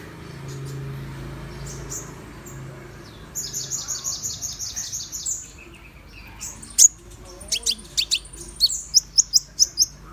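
Konin (kolibri ninja, a small sunbird) singing: a fast, high trill of rapid notes lasting about two seconds, then a series of sharp, separate high chirps, each sweeping up and down in pitch. This is a lure song used to set other konin singing.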